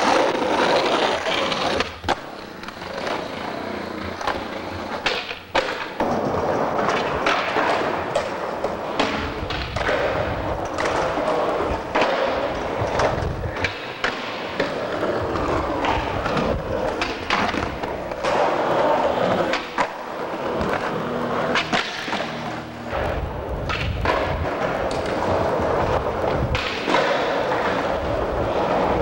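Skateboard wheels rolling on concrete, with sharp clacks every few seconds as the board's tail pops and the deck lands during flatground tricks.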